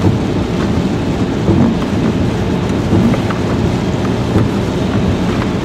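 Heavy rain drumming on a car's roof and windows, heard from inside the moving car's cabin along with wet road and tyre noise; a few faint clicks come from a cardboard box being handled.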